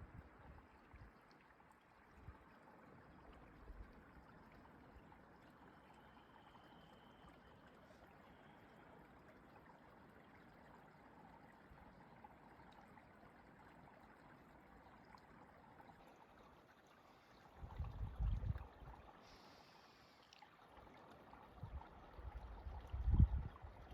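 Faint, steady rush of running water, like a small stream. Two brief low rumbles come through it, one about two-thirds of the way in and one near the end.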